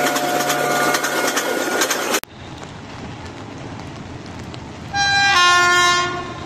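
Horn of a WAP7 electric locomotive sounding once for about a second, about five seconds in, as the train approaches. It starts on a single note and then jumps to a fuller chord. Before it, a loud dense noise with clicks cuts off abruptly about two seconds in, leaving a steady background hiss.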